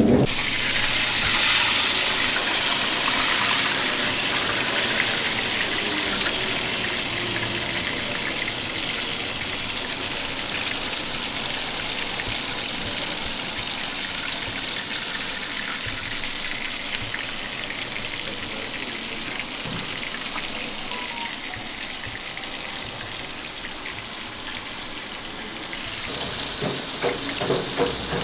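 Battered chicken pieces deep-frying in a large pot of hot oil: a steady sizzling hiss, strongest in the first few seconds and slowly easing, with sharper crackling near the end.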